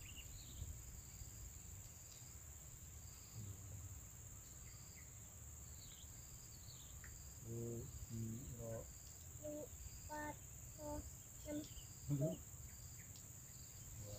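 Steady high-pitched drone of insects, with short high chirps repeating. In the second half, a run of brief pitched calls comes and goes, the loudest a little before the end.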